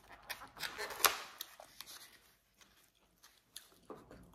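Foam takeout clamshell being handled and tilted: scattered small clicks, taps and creaks of the styrofoam, the sharpest about a second in, with a few fainter ones later.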